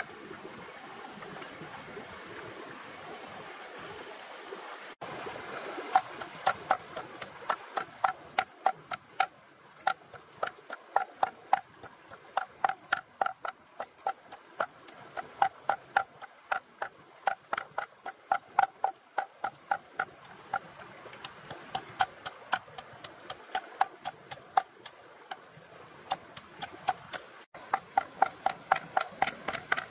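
Knife chopping on a wooden cutting board in a steady rhythm of about three knocks a second, each knock with a hollow wooden ring. For the first five seconds there is only a steady hiss before the chopping starts.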